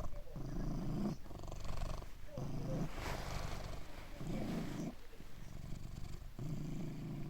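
Domestic cat purring close up, the purr swelling and easing in a steady rhythm of about one breath every two seconds.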